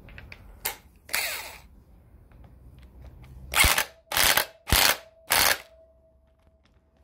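Electric impact wrench running the 14mm nut onto the crankshaft-end ignition rotor of a Suzuki GT750 engine. It gives a brief spin about a second in, then four short bursts of hammering about half a second apart, which tighten the nut down.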